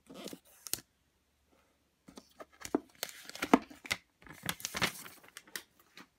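Paper wrap around a white plastic Apple Watch case being torn off by its pull tab: crinkling and tearing paper, then a run of rustling with sharp clicks as the case is slid out of its sleeve and handled.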